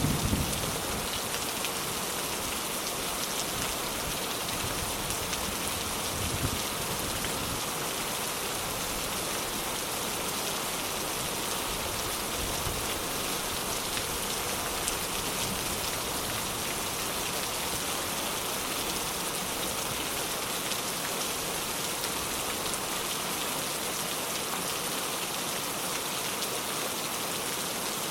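Steady rain falling, an even hiss of drops on leaves and ground that does not let up.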